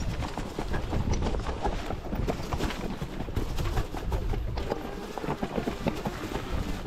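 Mountain bike rattling over a rocky trail: a dense run of irregular knocks and clatter from the tyres and bike on stones, over a steady low rumble.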